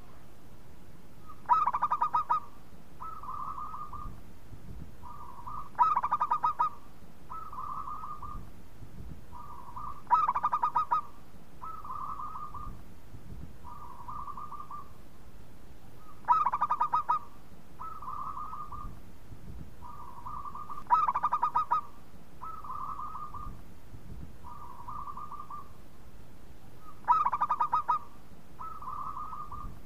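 Zebra dove (perkutut) singing: six songs a few seconds apart, each opening with a loud, rapid stuttering phrase and running on into a string of softer coos.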